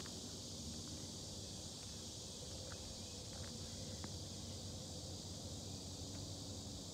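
Steady high-pitched chorus of summer insects that holds level throughout, with a few faint clicks.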